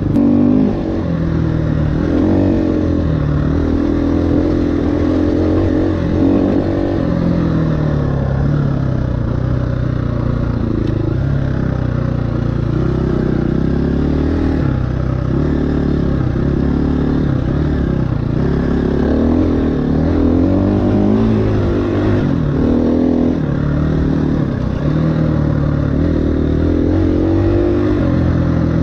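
2018 KTM 350 EXC-F's single-cylinder four-stroke engine revving up and down over and over as the dirt bike is ridden, its pitch rising and falling as the throttle is opened and closed.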